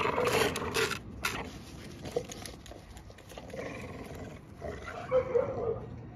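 Two American Bully dogs growling as they tug on one ball together, loudest in the first second and again near the end.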